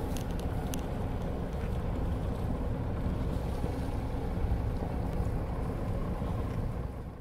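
Sailboat's engine running under way: a steady low rumble that fades out near the end.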